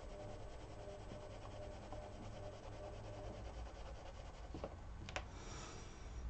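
Prismacolor coloured pencil shading on paper: a faint, steady scratching of the pencil tip over the page. A couple of light clicks come about two-thirds in.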